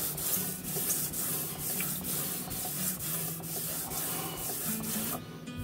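Fine-grit sandpaper on a wooden sanding block rubbed back and forth along a bare guitar fretboard with its frets removed, a run of scratchy strokes about two a second. This is the final smoothing of the fretboard wood. The strokes stop near the end.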